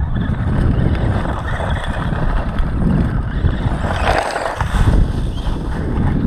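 Dromida 1/18 monster truck's brushed electric motor whining and its tyres crunching on gravel as it drives close past, loudest about four seconds in, over a low rumble.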